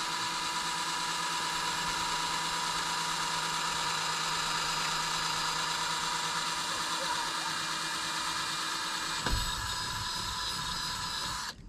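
Cordless drill running steadily as it bores a hole through a PVC pipe, with a short knock about nine seconds in. The drill cuts off just before the end.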